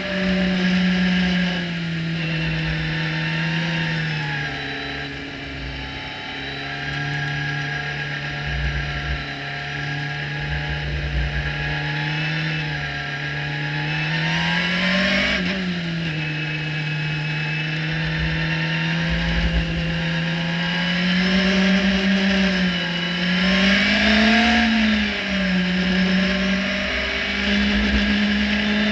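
Radical SR3-RSX's high-revving four-cylinder engine heard from the open cockpit, pulling steadily in second gear at moderate speed, its pitch rising briefly twice: once about halfway through and again near the end. A steady hiss of wind and road spray runs underneath.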